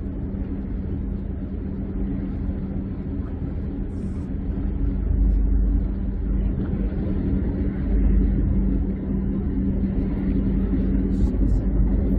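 Ferry engine droning steadily, a low rumble under a held hum, heard from on board.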